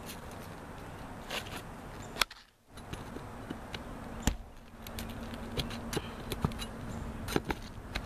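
Scattered sharp clicks and scrapes of a utility knife and hands working at asphalt roof shingles, cutting a damaged tab loose and pulling it out. The two loudest clicks come about two and four seconds in, and the clicks come thicker in the second half.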